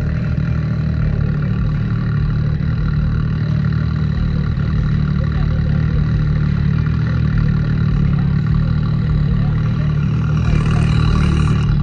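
ATV or side-by-side engine running steadily and loudly close by, with a brief burst of added hiss about ten seconds in.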